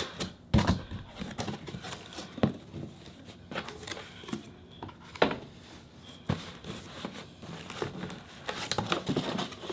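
A cardboard box being opened by hand: flaps pulled open and folded back, with cardboard crinkling and scraping and scattered sharp taps and knocks as the packing inside is handled.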